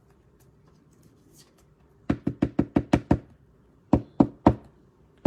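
A quick run of about seven sharp knocks on a hard surface, then four more a little slower a moment later, like knocking or drumming on a tabletop.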